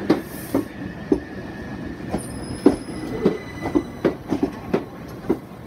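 Two coupled Class 377 Electrostar electric multiple units rolling slowly into the platform, their wheels knocking over rail joints and pointwork in an uneven series of clunks, with a thin high wheel squeal that fades out about halfway.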